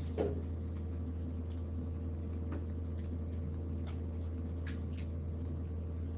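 Quiet classroom room tone: a steady low electrical hum with a few faint, scattered clicks.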